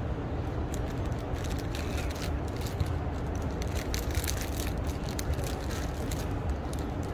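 Steady outdoor background noise: a low rumble with light scattered clicks, with no clear single source.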